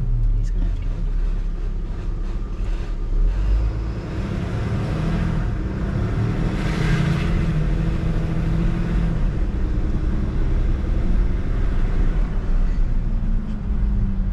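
Tow truck engine running under way, with road noise; a rush of noise swells and fades about halfway through, and the engine note drops near the end.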